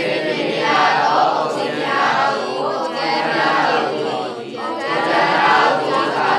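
Many voices chanting together in unison, continuously, with a short dip about four and a half seconds in.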